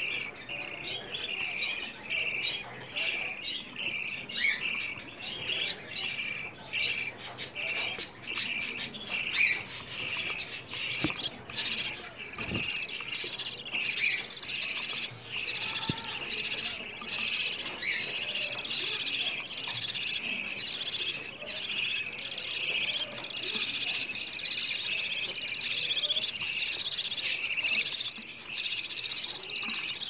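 Budgerigars chirping in rapid, unbroken chatter, many short high chirps close together.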